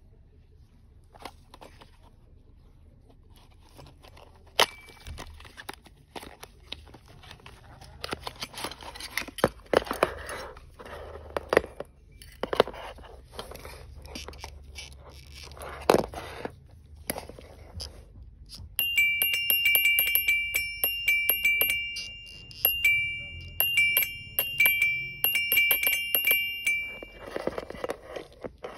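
Cardboard packaging being opened and a small metal unit handled, with scattered clicks and rustling. About two-thirds of the way in, a 12-volt motorcycle neutral bell is powered up and plays a loud electronic chiming tune of high beeping notes that repeats with short pauses.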